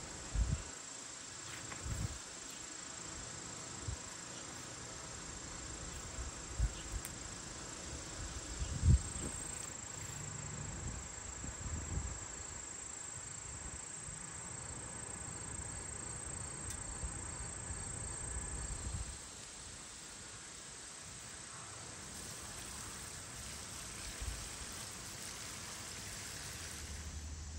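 Steady high-pitched insect chorus. Several short low thumps break in during the first half, the loudest about nine seconds in.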